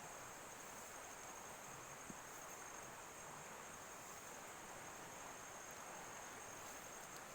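Faint, steady high-pitched insect chirring over a background hiss.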